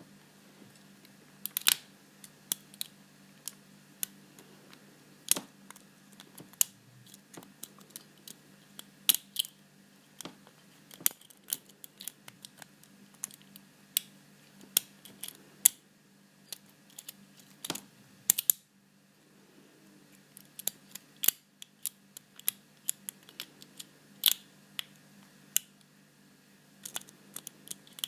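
Metal lock pick clicking and scraping against the pins and tension wrench in a Paclock PL410PRO seven-pin padlock during a picking attempt: irregular sharp ticks, a few a second, with short pauses.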